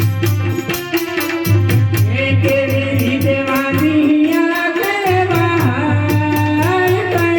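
Gujarati folk music played by a live ensemble: a fast, even tick of small cymbals about four times a second over a deep drum beat that drops out and comes back, with a gliding melody line entering about two seconds in.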